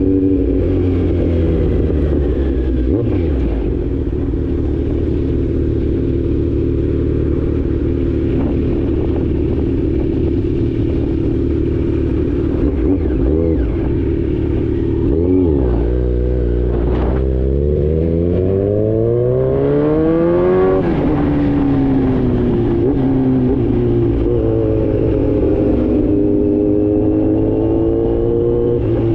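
Kawasaki Z900 inline-four through an Austin Racing full exhaust, riding at a steady engine speed, then revving up hard for about five seconds. The pitch drops sharply at an upshift and climbs again before levelling off.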